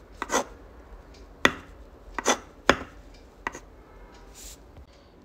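Uni-ball fine rollerball pen scratching quick strokes and tapping dots onto textured sketch paper, close up: about half a dozen short, sharp scratches and taps, irregularly spaced.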